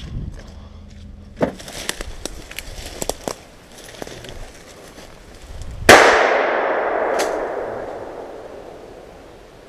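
A single hunting gunshot about six seconds in, very loud, with a long echo dying away over about three seconds. Before it, twigs snap and dry leaves crunch underfoot as a hunter walks through the brush.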